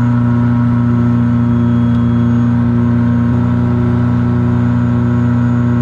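Self-launching glider's two-stroke engine running steadily under power in the climb, a loud even drone heard from inside the cockpit.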